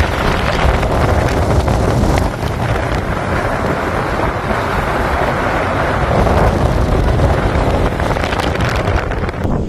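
Strong storm wind blowing across the microphone: a loud, steady rushing with a deep buffeting rumble.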